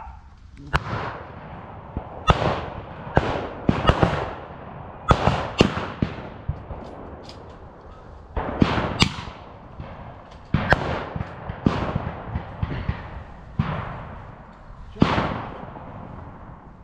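Irregular blank gunfire: about fifteen single shots from rifles fired with blanks, some much louder than others, each crack trailing off in a long echo.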